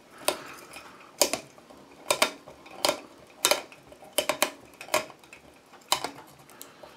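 Plastic twist-on wire nuts being turned by hand on old light-fixture wires, giving a series of sharp clicks about once every three-quarters of a second as they twist off.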